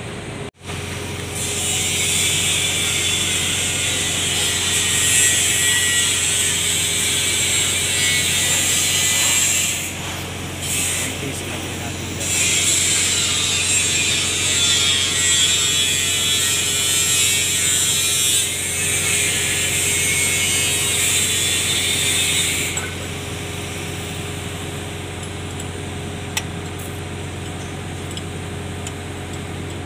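A mechanical tool or machine runs in two long spells, the first about nine seconds and the second about ten, with a short break between them, over a steady low hum.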